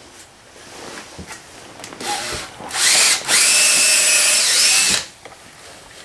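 Makita cordless drill boring a pilot hole into a pine board. It starts briefly about two seconds in, then runs steadily for about two seconds before stopping.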